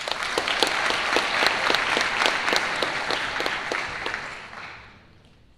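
Audience applauding, starting all at once and fading out after about four seconds, with one nearby clapper standing out at about four claps a second.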